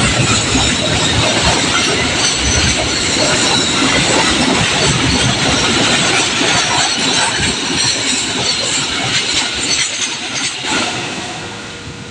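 A train passing close by: a loud, steady rumble and rattle of its wheels on the rails, easing off near the end.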